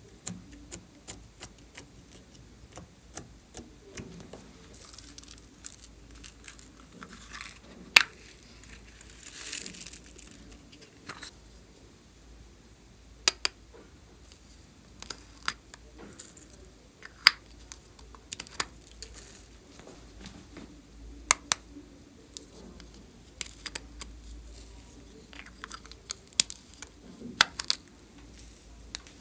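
Sharp clicks and taps of small plastic clay pots being handled and their snap-on lids opened, irregular and spread throughout, with a brief rustle about ten seconds in.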